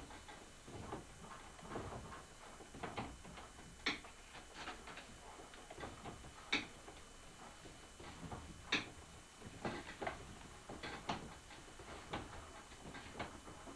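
Irregular light clicks and knocks, a few each second, from a potter's wheel turning while a pot is shaped on it by hand. Three sharper knocks stand out, about four, six and a half, and nine seconds in.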